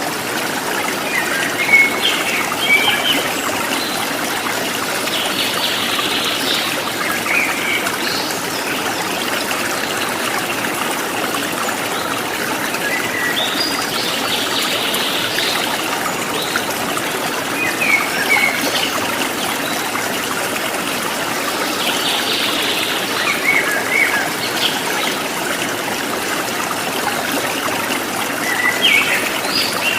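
Stream water running and trickling steadily, with birds chirping in short phrases every few seconds.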